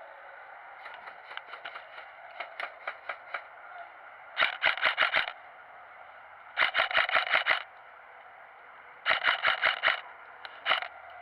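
Airsoft guns firing: scattered single shots over the first few seconds, then three full-auto bursts of about a second each at roughly eight shots a second, and a short burst near the end.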